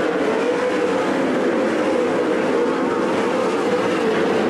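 410 sprint cars racing on a dirt oval: their 410-cubic-inch V8 engines make a steady drone whose pitch wavers slightly as the cars go around the track.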